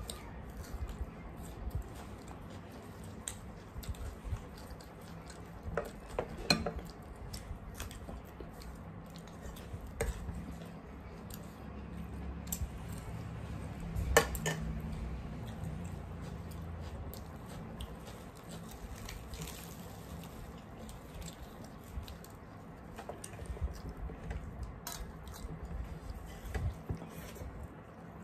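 Mukbang eating at a table: chewing and squishing of chole bhature eaten by hand, with scattered clinks of serving spoons and fingers against steel plates and bowls, the loudest two clinks about six and fourteen seconds in.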